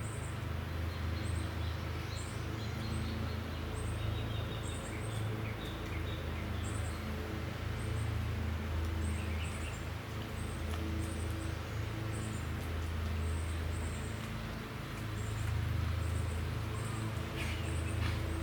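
Outdoor ambience: a bird's short high chirps repeat about once a second over a steady low rumble, with a few short scratchy sounds near the end.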